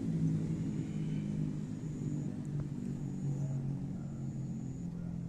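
A car engine running at low revs: a low, steady drone that wavers slightly in pitch.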